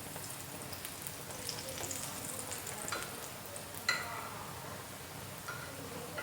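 Lacha paratha frying in ghee on a flat iron tawa, a steady sizzle with light crackling. A single sharp tap about four seconds in.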